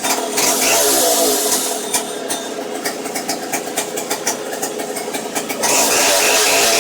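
Stihl Contra two-stroke chainsaw engine revved up, dropping back to an uneven popping idle, then opened up again about five and a half seconds in and held at high revs.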